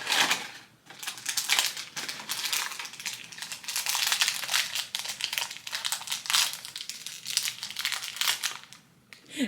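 Plastic packaging crinkling and rustling in the hands as a blind-box collectible figure is unwrapped, in irregular bursts that stop about nine seconds in.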